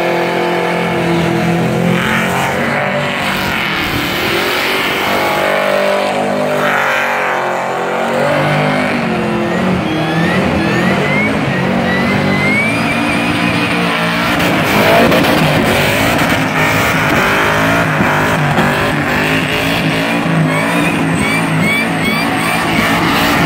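Supercharged 6.0-litre L98 V8 of a VX Commodore revving hard and holding high revs during a burnout, its pitch rising and falling, over the steady squeal of the spinning rear tyres.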